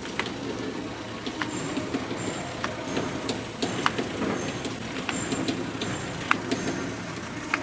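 Small bag packing machine running: a steady mechanical din with irregular sharp clicks throughout.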